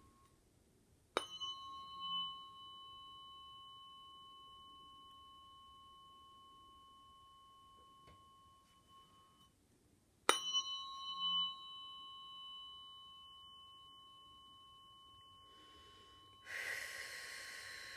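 Tuning fork struck twice, about nine seconds apart; each strike rings a steady high tone with a higher overtone that fades slowly. Near the end comes a short rushing noise.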